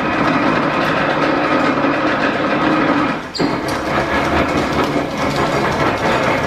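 1897 Whitcomb eight-foot metal planer running on belt drive, its table travelling under the tool head with a steady mechanical clatter of gears and belts. About halfway through the sound dips briefly with a short high squeak, then carries on.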